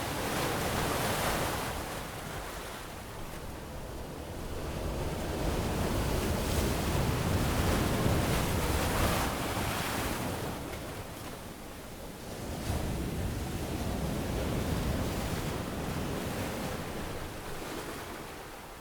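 Ocean waves breaking and washing up a sandy tropical beach, the surf swelling and receding three times.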